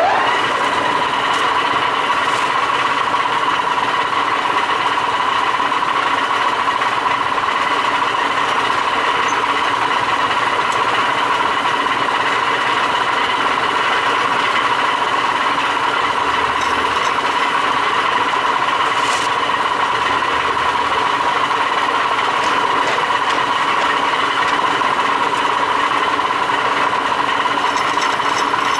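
Q 1313 pipe threading lathe running at steady speed during a threading test, a constant machine whine with no change in pitch.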